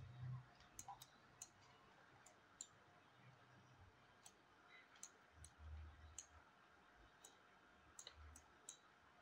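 Faint, irregular clicking of a computer mouse, a dozen or so clicks spread unevenly through otherwise near silence.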